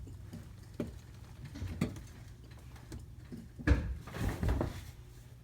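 Casters of hydraulic wheel dollies rolling and rattling as a car is pushed sideways on them. There are scattered small knocks, then a louder knock a little before four seconds in and a short rumble after it.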